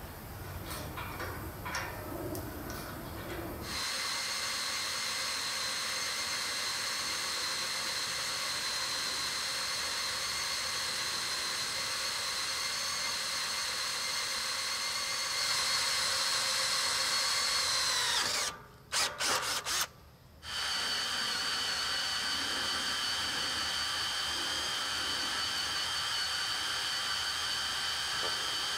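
Hand-held power drill running a cobalt twist bit through a steel track rail, cutting chips: a steady motor whine after a few seconds of handling knocks. About 18 seconds in the whine falls in pitch and stops, there are a few short trigger blips, and then the drill runs steadily again.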